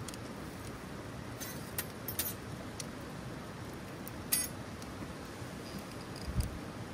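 Wood fire crackling: a few sharp pops between about one and a half and two and a half seconds in, and a louder one a little after four seconds, over a steady hiss. A dull thump comes near the end.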